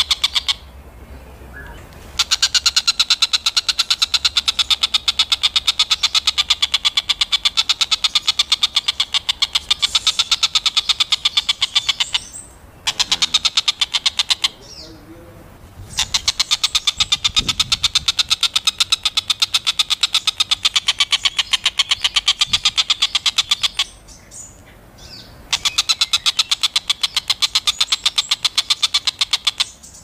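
Oriental dollarbird giving its rapid chattering call, a fast rattle of repeated harsh notes in long runs broken by brief pauses about two seconds in, near the middle, and a few seconds before the end.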